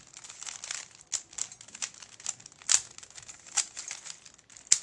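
Plastic Penrose puzzle cube being scrambled by hand: its layers are turned quickly, giving a rapid, irregular run of plastic clicks and clacks, with a few sharper clacks spread through.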